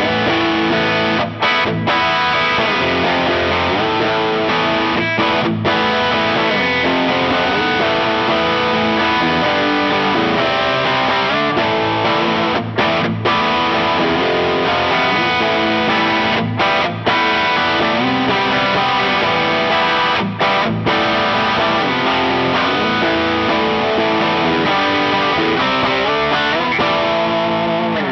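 Ibanez RG421HPAM electric guitar played with a distorted tone: a run of heavy riffs, broken by short full stops several times.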